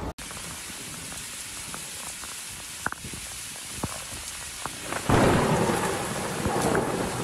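Heavy rain hissing steadily on floodwater, with a few sharp drips. About five seconds in, a sudden loud rumble of thunder breaks in and carries on.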